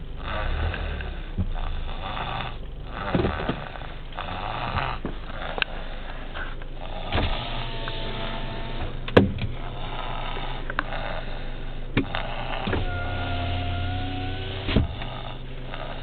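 A young child snoring in his sleep in a moving car, breath after breath over the car's steady road hum. Two of the snores are longer and carry a steady pitch. A few sharp clicks come in between.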